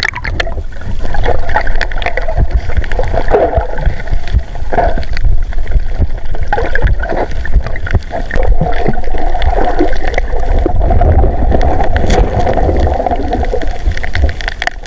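Muffled underwater sound of seawater moving around a submerged camera: a loud, steady low rumble and gurgling with scattered knocks.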